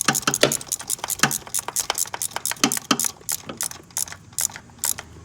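Hand ratchet clicking rapidly and unevenly while tightening a spark plug down through a socket and extension. The clicks thin out and stop near the end.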